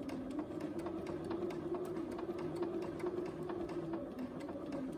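Bernina sewing machine stitching slowly: a steady motor hum with even, rapid ticking of the needle, several stitches a second.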